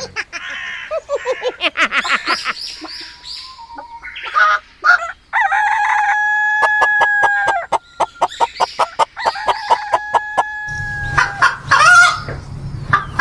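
Chickens clucking in quick, repeated calls, with a rooster crowing in two long held calls, about six and nine seconds in.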